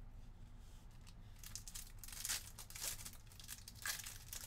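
A trading card pack wrapper being torn open by hand, with sharp crinkling crackles that start about a second and a half in and peak twice.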